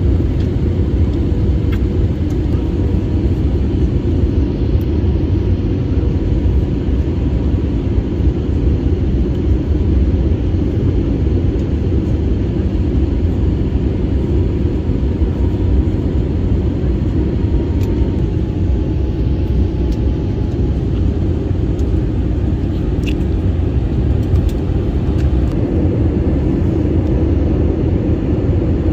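Steady low rumble of a jet airliner's cabin in flight, the wing-mounted jet engine and rushing air heard from a window seat, with a faint steady hum over it.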